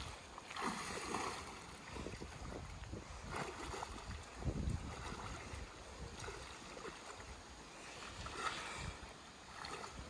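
Water splashing and sloshing around a man wading waist-deep while handling a cast net, with wind gusting on the microphone.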